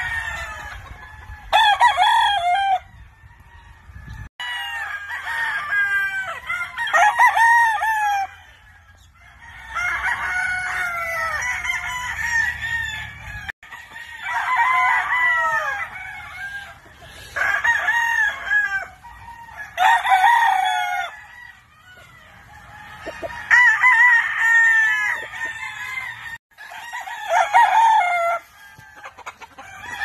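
Game roosters crowing one after another, crow after crow with short gaps between. Some crows overlap, from more than one bird.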